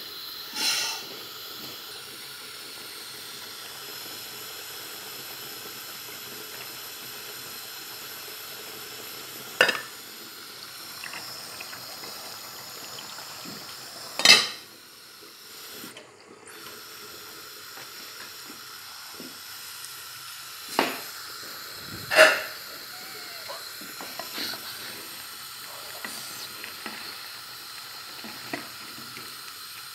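Steady hiss of a covered aluminium pot of curry simmering on a gas stove, broken by four sharp metal clanks of pot and lid; the loudest comes about 14 seconds in as the lid is lifted. Near the end a wooden spoon stirs the bubbling curry with light scraping.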